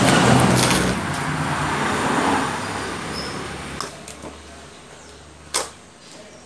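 A motor vehicle passing by: a loud engine and road noise that is strongest in the first two seconds or so and fades away over about four seconds. A few sharp clicks follow, the loudest about five and a half seconds in.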